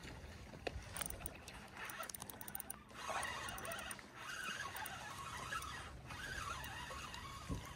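Daiwa spinning reel being cranked fast as a hooked fish is reeled in. It gives a quick run of sharp ticks at first, then a thin, wavering squeaky whine from the turning reel.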